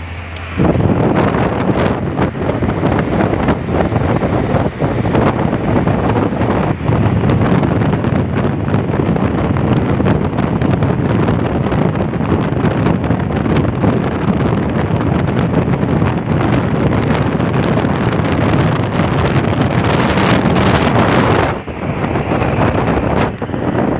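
Wind rushing and buffeting over the microphone of a phone held out of the window of a car moving at speed. The noise is loud and steady, starts abruptly about half a second in and dips briefly twice near the end.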